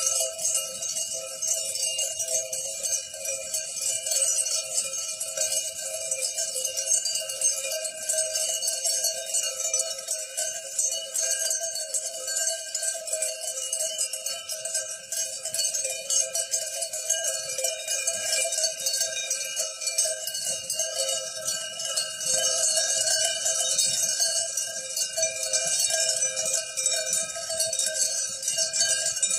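Many sheep bells on a grazing flock, jingling and clanking together in a steady, dense ringing.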